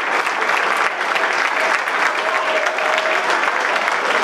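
Audience and people on stage applauding, a steady dense clapping throughout.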